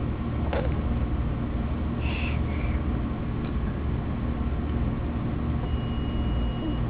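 Steady low background rumble, with a few faint short squeaks and a thin high tone near the end.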